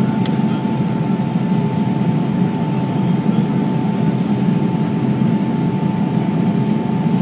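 Cabin noise of a Boeing 727 climbing out after takeoff, heard from inside the cabin: a steady deep roar from its three rear-mounted Pratt & Whitney JT8D turbofans, with a thin steady whine above it.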